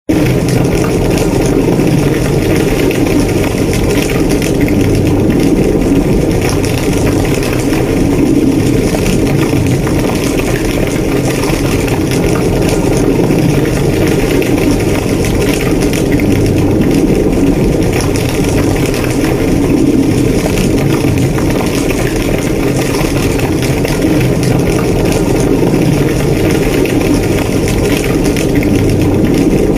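A burning house: a large fire burning steadily, a dense low rush of flames with scattered crackles throughout.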